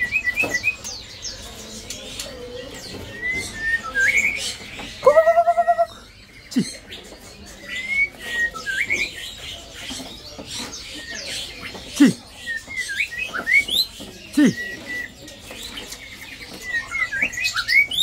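Caged songbirds chirping and whistling in short, scattered calls, with one louder, fuller call about five seconds in and a few short falling low notes.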